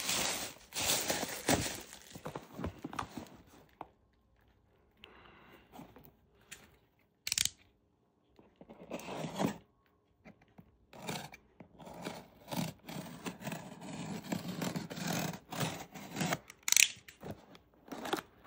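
Unpacking noises: bubble wrap crinkling as it is pulled off, then a utility knife slitting the packing tape on a cardboard box, with the cardboard scraping and rustling as it is worked open. There are a few quiet gaps in the first half.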